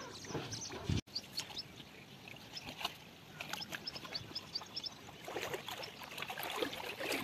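Shallow muddy water sloshing and splashing irregularly as a tractor standing in it is scrubbed by hand, with a run of short, high bird chirps between about one and four seconds in.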